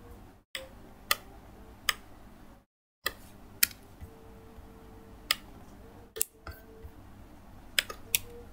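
Scattered single sharp clicks of laptop keys and a mouse, about eight over several seconds, against faint steady background noise.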